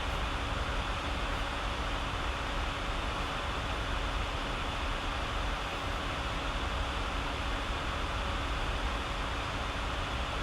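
Steady background hiss with a faint, even hum underneath, like a fan or air conditioner running; no separate paper-folding sounds stand out.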